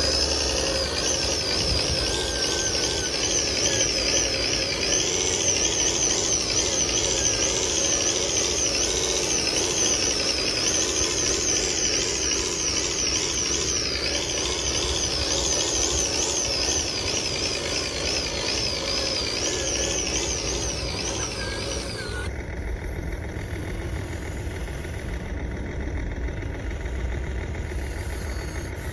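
Small electric motors and gearboxes of radio-controlled construction models running, with a high whine that rises and falls over and over as the throttle changes. The whine stops about twenty-two seconds in, leaving a steadier lower running sound.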